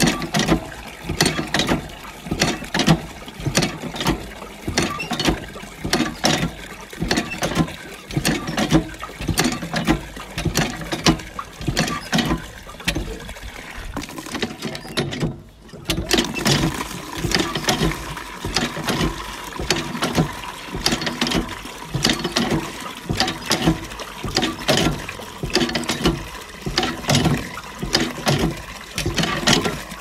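Water pump worked by hand, about one stroke a second, its mechanism clacking with each stroke amid running, splashing water, with a short break about halfway through.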